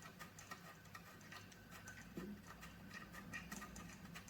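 Faint, irregular small clicks and ticks from the ring light's lamp head being screwed onto the tripod's threaded mount, over a faint steady low hum.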